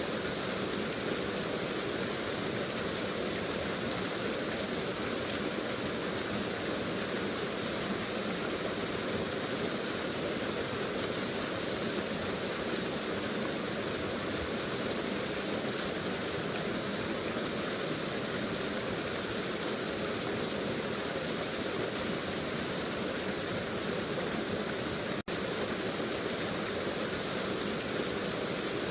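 Waterfall sound effect: water falling and rushing in a steady, even roar, with one momentary break about 25 seconds in.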